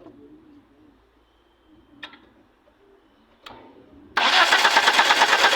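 Two faint clicks, then about four seconds in the Toyota Corolla's starter motor starts cranking the engine with a fast, even churning. The engine does not fire: there is no spark, which the mechanic puts down to a faulty distributor.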